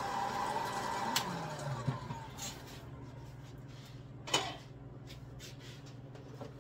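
Electric hot air popcorn popper whirring with its fan motor running; about a second in it clicks off and the motor winds down, falling in pitch. It is followed by a few light knocks as the plastic popper is handled.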